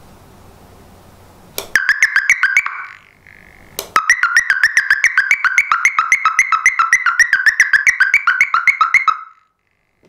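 A homemade smoke alarm's electronic hooter (horn-type siren) sounding a loud, rapid warbling tone of about nine pulses a second. It starts about two seconds in, breaks off for about a second near three seconds, then resumes and cuts off just after nine seconds. The MQ135 smoke sensor has detected incense smoke and switched the hooter on through its relay.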